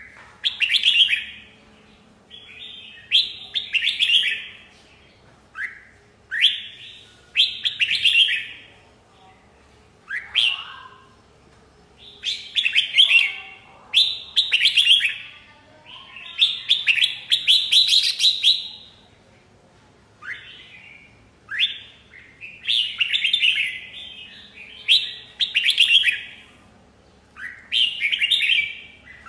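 Red-whiskered bulbul singing: a run of short, bright, chattering phrases, repeated every second or two with brief pauses between them.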